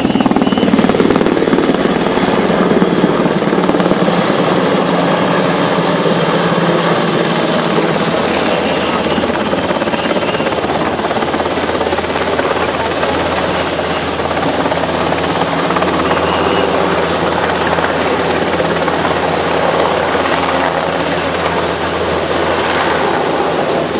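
Military helicopter flying low overhead and away: steady rotor and turbine noise, loudest in the first few seconds and easing a little as it moves off.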